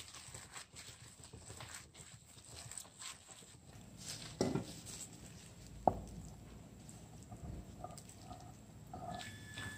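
Hands kneading a soft dough in a glass bowl: irregular soft slaps and taps, with one sharp knock about six seconds in. Near the end, a spatula scrapes cooked filling out of a nonstick pan.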